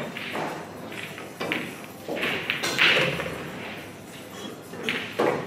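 Pool balls clicking and knocking together as a nine-ball rack is set up by hand on the table: several separate sharp knocks over a few seconds.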